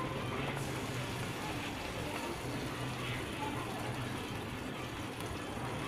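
Rohu fish pieces frying in spiced oil in an iron karahi: a steady, even sizzle with a low hum underneath.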